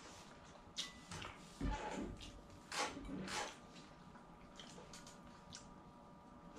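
Dishes and food being handled during a meal: a few short knocks and scrapes in the first half, then only soft, faint ticks.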